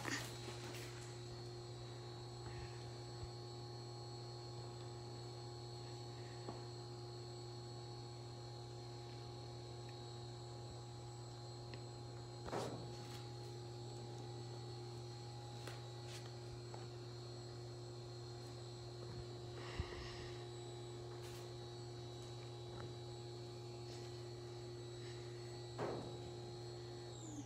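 A steady electrical hum, with several pitches held together, from a small motor-driven appliance; near the end it slides down in pitch and stops as the motor winds down. A few soft thumps are heard along the way.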